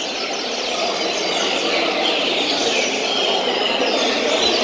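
Many caged double-collared seedeaters singing at once, a dense chorus of overlapping high, quick chirping phrases during a song-count tournament.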